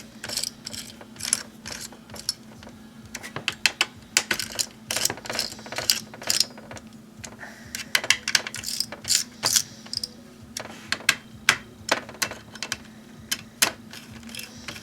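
Irregular clicks and taps of a laptop's plastic and metal parts being handled and screwed back together during reassembly, over a steady low hum.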